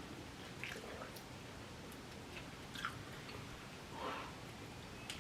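Faint chewing of chicken nuggets, with a few soft, short mouth noises.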